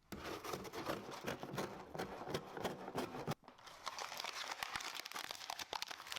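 Faint, irregular crinkling and crackling of packaging being handled, with a brief break about three seconds in.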